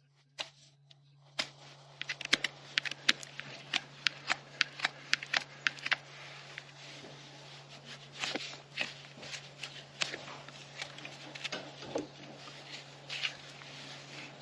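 Hoof-trimming tools working on a draft horse's hoof: a quick run of sharp cutting clicks about three a second, then scraping strokes against the horn.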